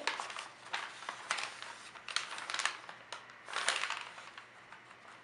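A sheet of metallic gold gift-wrap paper crinkling and rustling in irregular bursts as hands lift and fold it.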